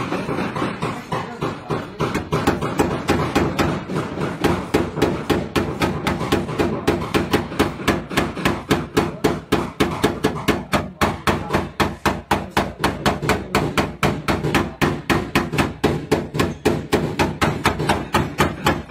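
Paintless dent repair tap-down hammer rapidly tapping the sheet metal of a car fender, about four to five even taps a second, knocking down the high spots around the dents.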